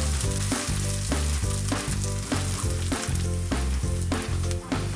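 Ginger garlic paste and onions sizzling in hot oil in a kadhai, under background music whose low notes change in a steady rhythm and are the loudest part.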